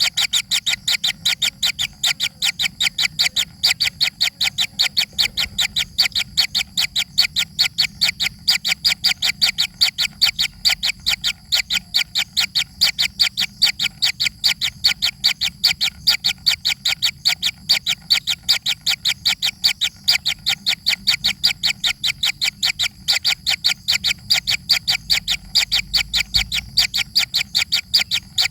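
A young bird's begging calls: short high chirps repeated rapidly and evenly, about four a second, without a break.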